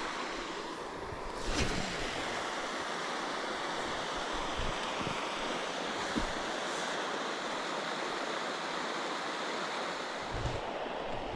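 Steady rush of wind over the microphone, with one brief knock about a second and a half in.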